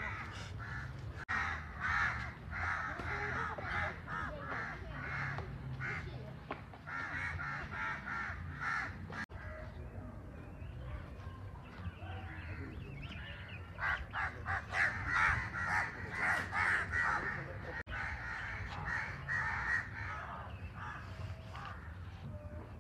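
Birds calling in quick runs of repeated calls, in two long stretches, over a steady low background noise.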